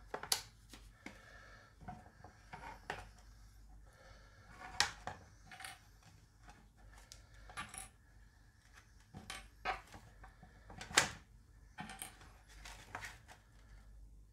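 Metal binder clips being pulled off a clamped two-part metal baking mould and set down, giving irregular sharp clicks and clinks of metal on metal and on the cutting board, the loudest about 5 and 11 seconds in.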